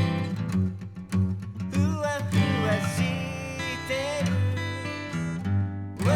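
Background music: a song with acoustic guitar and a melody line over a steady bass.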